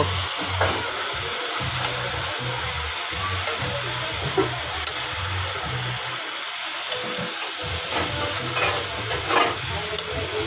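Chopped string beans sautéing in an aluminium pan on a portable gas stove: a steady frying hiss, with a few light clicks of a spoon stirring against the pan.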